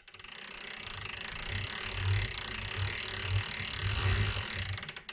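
Tacx Flux S smart turbo trainer running under pedalling, a steady high whine and hiss with a low uneven pulsing underneath. It grows louder over the first second or two and cuts off suddenly near the end.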